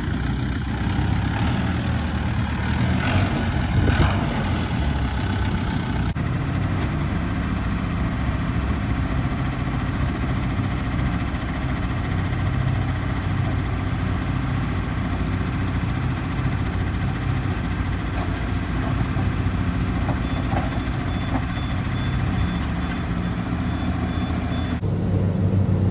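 Diesel engine of a Massey Ferguson telehandler running steadily while it handles straw bales.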